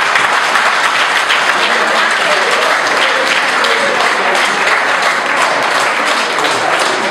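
A crowd applauding: many people clapping at once in a steady, dense patter.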